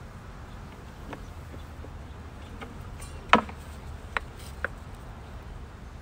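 A few sharp clicks and knocks of a beehive lift strap and its metal hooks being handled against the wooden hive, the loudest a little past halfway and two lighter ones soon after, over a steady low rumble.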